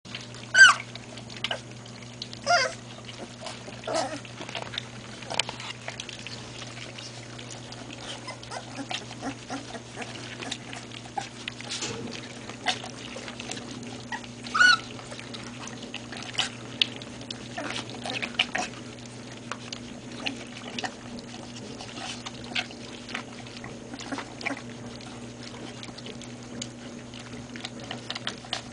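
Great Pyrenees puppies lapping and slurping formula from a bowl, a constant patter of small wet clicks, broken by a few short high-pitched puppy squeals, the loudest near the start and about halfway through. A steady low hum runs underneath.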